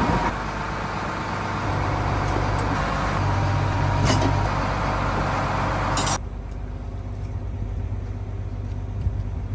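Fishing boat's engine running steadily, with a broad hiss over it that cuts off suddenly about six seconds in, leaving the engine alone.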